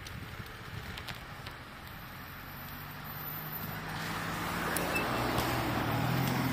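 A car drawing near on the road, its tyre and engine noise swelling over a few seconds to its loudest near the end.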